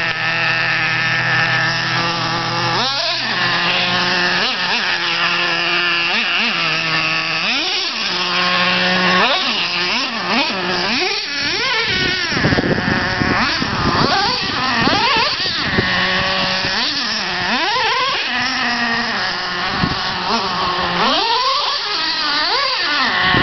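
Traxxas Slayer 3.3 nitro RC truck's small two-stroke nitro engine running, steady for the first few seconds and then revving up and down in quick rises and falls as the truck is driven.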